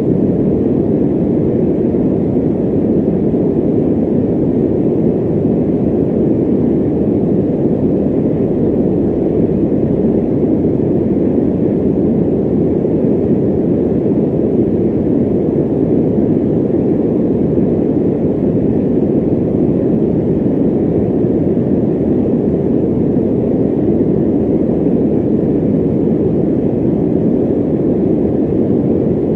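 Electric fan running steadily: an even, muffled rush of moving air, deep in tone, that never changes.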